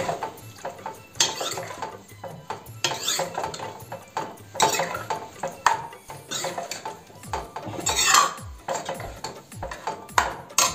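A ladle scraping and knocking around the inside of an iron kadhai as a thick radish curry is stirred to mix in freshly added gram flour, in repeated strokes every second or two.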